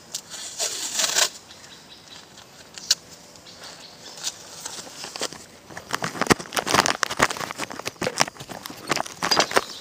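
Close handling noise: rustling and crackling with sharp clicks and scrapes. It comes in a short burst about half a second in, then as a dense run from about six seconds to near the end, as the camera and its pack are handled.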